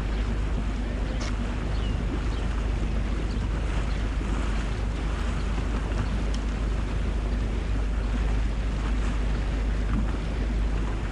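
Boat under way: a steady engine drone with water rushing along the hull and wind buffeting the microphone.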